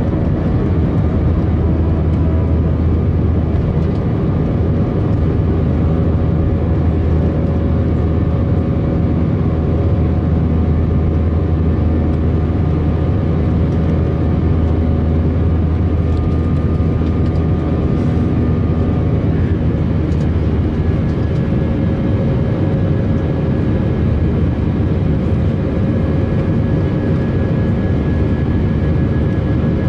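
Airbus A319 in its initial climb after takeoff, heard inside the cabin beside the wing: the IAE V2522-A5 turbofan running steadily with a deep rumble and several held tones over air noise. About two-thirds through, some of the tones drop out and a new, higher one comes in.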